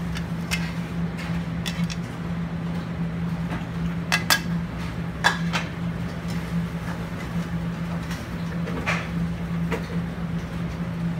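Metal tongs clinking against a sauté pan and a china plate as spaghetti and a braised shank are plated: scattered sharp clinks, a few close together about four seconds in and the loudest about a second later, over a steady low hum.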